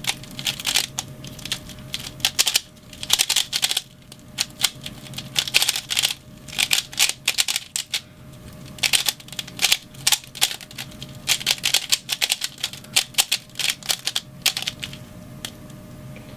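Rubik's Cube being turned rapidly in a speedsolve: plastic layers clicking and clattering in quick flurries with short pauses between them, stopping about fifteen seconds in.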